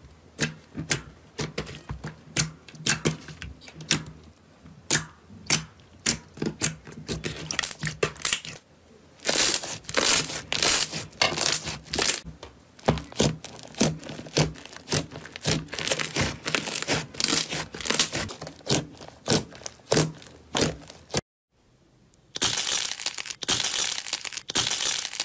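Clear slime being pressed and squeezed by hand, giving a long run of sharp wet pops and clicks, thickest around the middle. After a short silent break near the end, another slime, with a glitter-coated crust, is squeezed in the hand, giving a denser, steadier crackling.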